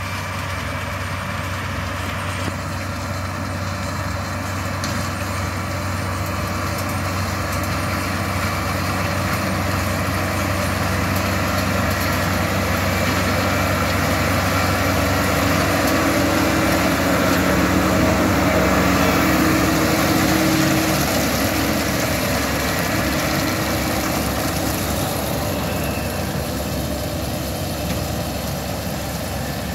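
New Holland tractor's diesel engine running steadily while pulling a Claas round baler through a hay swath. It grows louder as the rig passes close, loudest a little past halfway, then fades as it moves away.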